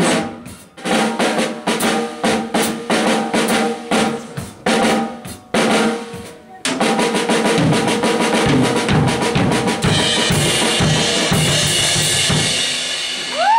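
PDP drum kit played solo: separate snare and tom hits with short gaps, breaking about six and a half seconds in into fast continuous drumming. Cymbals ring over it from about ten seconds in.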